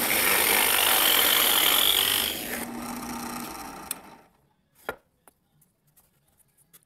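Drill press cutting a 1-inch plug cutter into 3/4-inch pine at 1600 RPM: a loud cutting noise for about two and a half seconds, then a quieter running sound that stops about four seconds in. A single sharp click follows about a second later.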